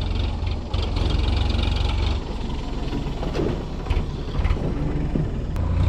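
Farm tractor engine running as the tractor drives past, a steady low rumble that is loudest for the first two seconds, eases, then swells again near the end.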